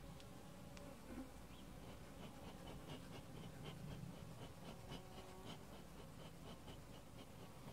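Honeybees buzzing faintly around an opened hive, with a faint run of short high ticks, about three a second, through the middle.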